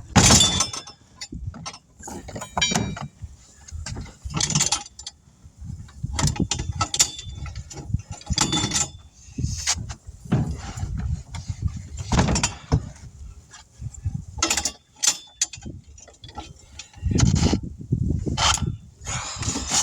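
Irregular metallic clanks, knocks and scrapes of hand tire-changing tools being worked on a truck tire and steel rim: a dozen or so sharp strikes at uneven intervals, with quieter shuffling between them.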